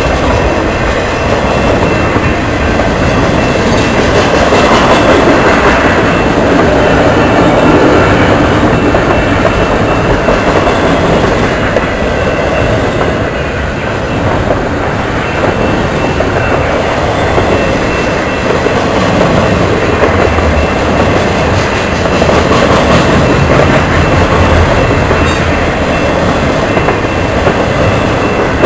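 Double-stack intermodal freight cars rolling past close by: a loud, steady rumble and rattle of steel wheels on the rails.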